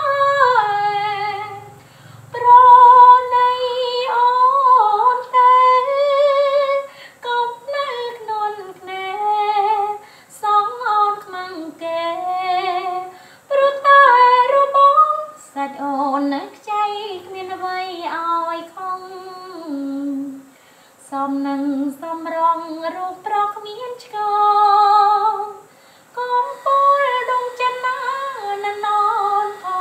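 A woman singing alone without accompaniment: a slow melody in phrases, with long wavering held notes and short pauses between phrases.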